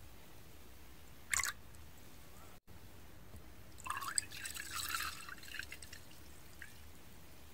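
Makgeolli pouring into a glazed earthenware cup: a brief splash about a second in, then a couple of seconds of splashing and bubbling from about four seconds in.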